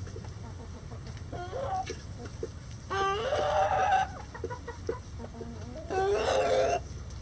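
Backyard chickens clucking softly, with two loud, pitched calls about a second long each and about three seconds apart.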